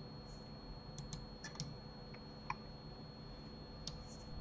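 Faint, scattered clicks of a computer mouse and keyboard, about seven, some in quick pairs, over a low steady hum.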